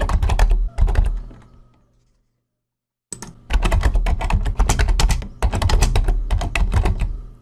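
Rapid typing on a computer keyboard: a dense run of keystrokes that dies away about a second and a half in, a break of complete silence, then a second run of typing from about three seconds in.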